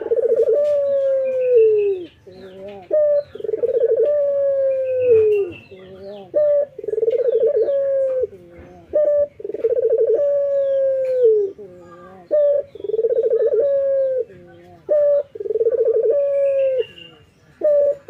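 Male Barbary dove (local puter, ringneck dove) cooing over and over. The pattern is a short note followed by a long rolling coo that drops away at its end, repeated about every three seconds, six times.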